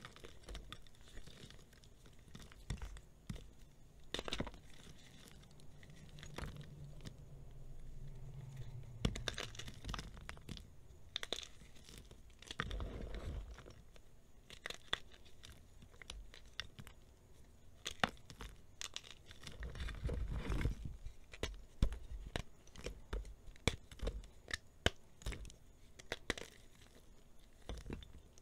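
Fingers crushing and crumbling dried gym chalk reforms. Many scattered crisp cracks and snaps as chunks break, with soft gritty crunching of powder between them and a couple of heavier crunches along the way.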